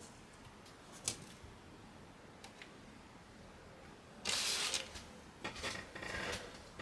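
Handling noise: a sharp click about a second in, then a short, louder scraping rustle about four seconds in, followed by a few lighter clicks and rustles.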